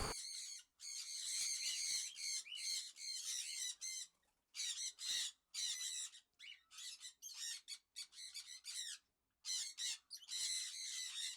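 Many small birds calling at once, a busy chatter of short, high-pitched squawks and chirps with a few brief pauses.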